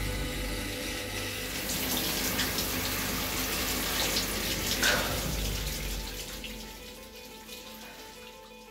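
Shower water running and splashing, fading away over the last few seconds, over faint background music.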